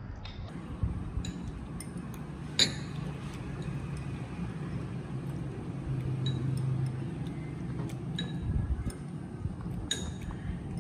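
Kitchen clatter: a few sharp clinks of dishes or utensils, the loudest about two and a half seconds in and two more near the end, over a low steady hum.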